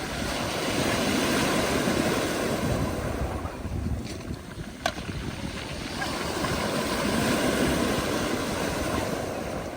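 Black Sea waves washing onto the beach, surging up twice and easing off between surges, with one brief sharp click about five seconds in.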